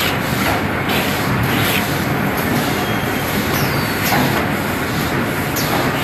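Facial tissue bag-packing machine running: a steady mechanical clatter with short clacks recurring irregularly.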